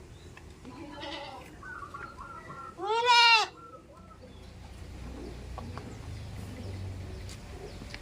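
Goat bleating: a fainter call about a second in, then one loud, short bleat about three seconds in that rises and falls in pitch.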